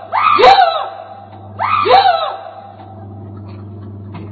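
A person shouting loudly twice, about a second and a half apart, each call sliding up and then down in pitch, over a steady low hum.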